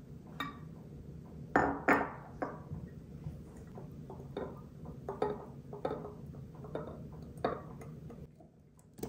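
Olive oil glugging as it is poured from a glass bottle into a glass dispenser bottle: a run of irregular glugs, stopping about eight seconds in.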